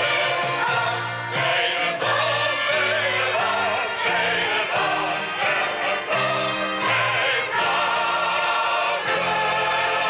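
Music: a choir singing over an instrumental accompaniment, with a bass line that moves in steps of held notes.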